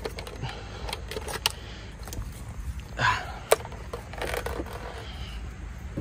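Scattered clicks and light rattles of a portable tyre inflator and its cords being handled, over a low steady rumble.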